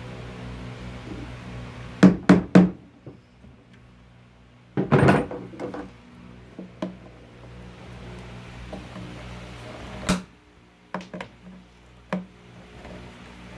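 Sharp metallic clicks and knocks of hand tools, end-cutting nippers among them, working at the nails of an old trunk's metal bracket: three quick clicks about two seconds in, a louder clatter around five seconds, and scattered single clicks later.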